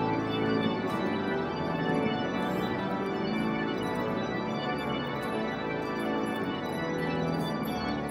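Pipe organ playing full, sustained chords at a steady level, accompanying the clergy procession.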